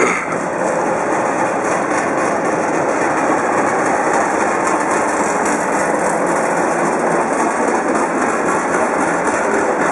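A 1966 South Australian Railways diesel locomotive running steadily as it rolls slowly past at close range, its engine mixed with the rumble of wheels on the rails.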